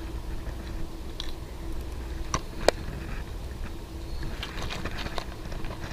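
A few short sharp clicks and taps as a popper lure is handled out of a plastic tackle box and clipped onto the fishing line, the sharpest about two and a half seconds in, over a low steady rumble.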